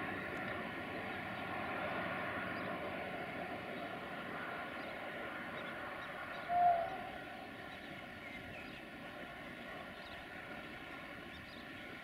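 A distant diesel locomotive running with a steady drone of many tones, slowly fading as it moves away. A single short, higher tone cuts in briefly about six and a half seconds in.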